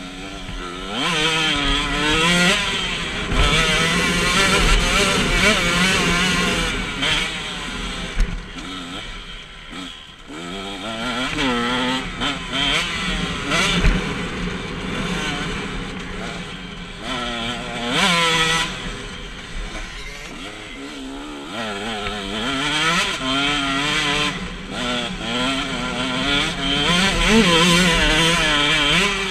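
KTM 125 SX two-stroke single-cylinder motocross bike engine ridden hard, revs rising and falling repeatedly as the rider accelerates, shifts and rolls off. The revs drop back further about ten seconds in and again around twenty seconds in before climbing again.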